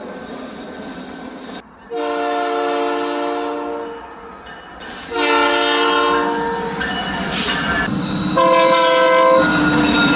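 Train air horn sounding a chord of several notes in three blasts, the first two long and the third shorter, over the rumble of a passing train.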